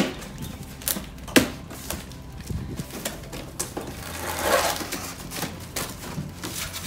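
Cardboard shipping box being opened by hand: a few sharp snaps of the flaps and tape in the first second and a half, then a longer rustle and scrape of cardboard and packing about four seconds in.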